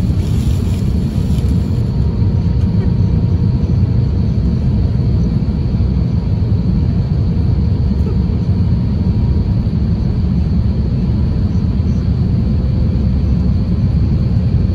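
Airliner cabin noise in an Airbus A350-1000 in flight: a steady low rumble of airflow and engines, with faint steady whines above it.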